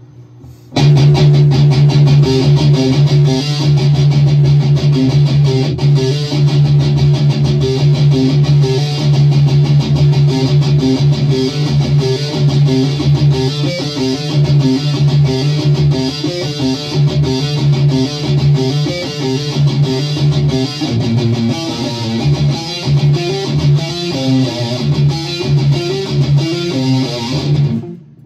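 Electric guitar played loud through an amplifier. It comes in suddenly about a second in and cuts off suddenly near the end.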